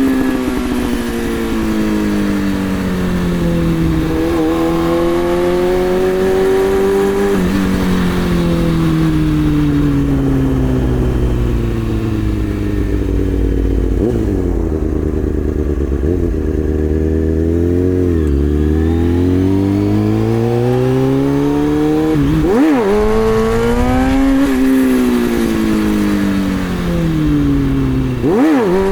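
2003 Kawasaki ZX-636's inline-four engine revving, its pitch falling and rising in long sweeps as the throttle is worked in first gear. Sharp quick throttle blips come about two-thirds of the way through and again near the end.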